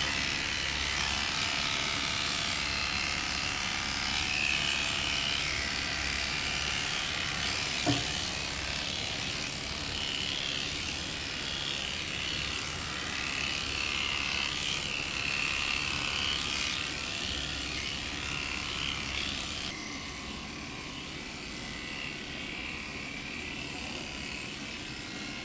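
Electric grooming clippers running steadily as they shave through a dog's long coat, with one short knock about eight seconds in. The hum eases slightly in the last few seconds.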